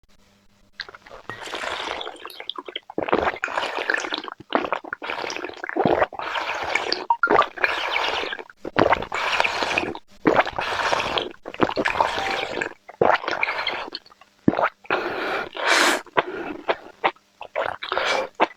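Wet chewing, smacking and slurping of someone eating pork, close to the microphone, in repeated bursts of about half a second to a second with short pauses between.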